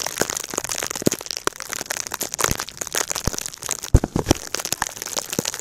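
Snow crunching and crackling in a blizzard, with scattered sharp knocks at irregular intervals.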